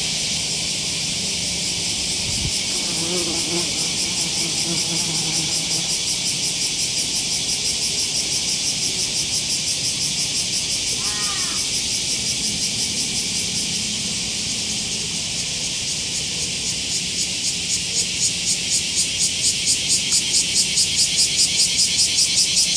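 A chorus of cicadas keeps up a steady high buzz that, about three-quarters of the way through, turns into a fast, even pulsing and grows louder. A short bird chirp comes about halfway.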